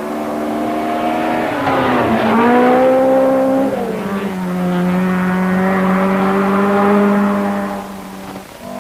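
1970s rally car engine running hard on a gravel stage. Its note dips and climbs back about two seconds in, drops to a lower steady pitch around four seconds in, and fades near the end.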